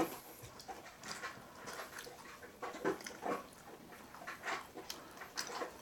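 Faint, irregular wet mouth sounds of a person chewing a bite of a meatless Impossible Burger slider.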